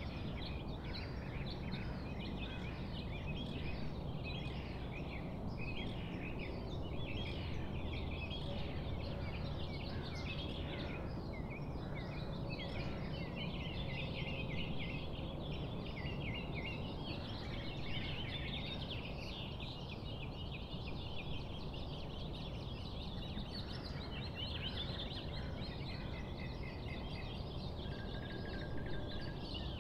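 A chorus of birds chirping and calling, with many short calls overlapping throughout, over steady low background noise.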